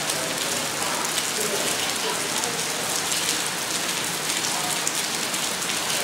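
Steady rain falling, an even hiss dense with small individual drop hits.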